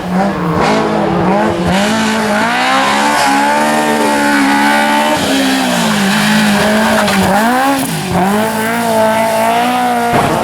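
Rally car engine running at high revs, its pitch repeatedly dropping sharply and climbing again, about half a dozen times, as the car lifts off and changes gear.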